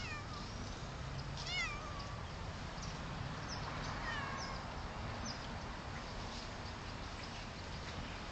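A domestic cat meowing: three short calls in the first half, the last one sliding down in pitch.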